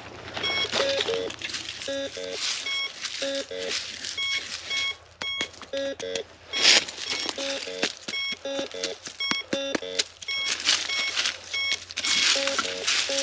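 Metal detector beeping over and over in short, irregular pairs and runs at a low and a high pitch, sounding off on everything: a sign the owner takes for its battery dying.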